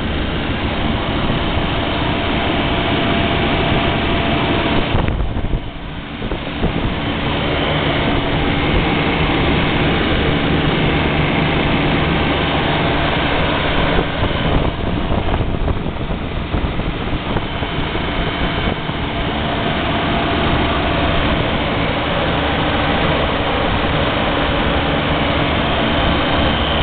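Refrigeration condensing unit running: a semi-hermetic compressor and its fan give a steady machine hum with a few held tones, briefly quieter about five seconds in.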